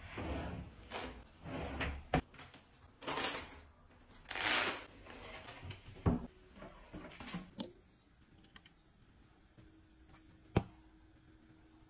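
Household handling sounds at drawers and cabinets: a drawer sliding, short rustles and scrapes, and a few sharp clicks of doors and objects being set down, the loudest near the end.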